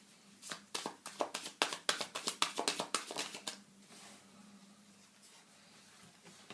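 Tarot cards being shuffled and handled: a quick run of light card clicks and flicks for about three seconds, then it stops.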